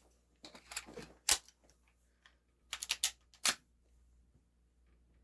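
Scattered metallic clicks and clacks from handling a Game Face M311 full-metal spring-powered airsoft pistol while it is loaded with 0.20 g BBs and made ready to fire, with a sharper click about a second in and another about three and a half seconds in.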